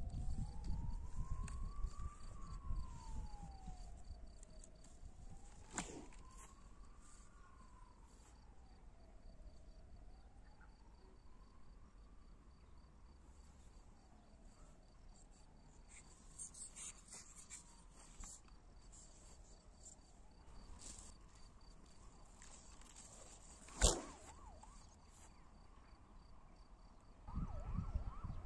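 A faint electronic tone from a radio-control transmitter slides slowly up and down in pitch, rising and falling about every five seconds, with the swings getting smaller. This is typical of a glider's variometer audio following climb and sink. Low wind rumble is heard at the start and again near the end, and there is one sharp click.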